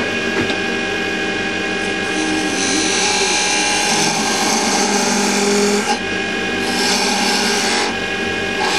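Wood lathe running with a steady motor hum while a hand-held turning tool cuts the spinning wooden candlestick spindle. The shaving hiss of the cut starts about two and a half seconds in and comes in two long stretches with short breaks between them.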